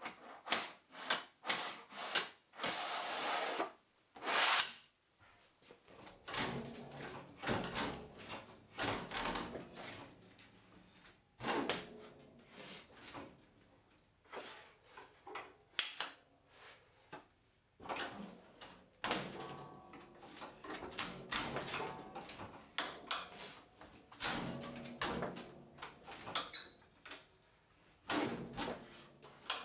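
Mitre guillotine chopping small pieces of hardwood: a run of sharp clunks and knocks as the blades cut and the pieces are set against the fence. A brief noisy burst comes about three seconds in.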